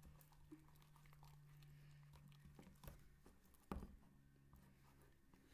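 Faint sticky clicks and squelches of a silicone spatula stirring clear-glue slime, a little chunky as it activates, in a plastic tub, with one louder tap about three and a half seconds in.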